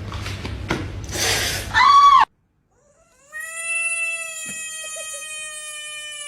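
Cat yowling: a short, loud cry that rises and falls about two seconds in, then after a brief break a long drawn-out call of about four seconds, sinking slightly in pitch.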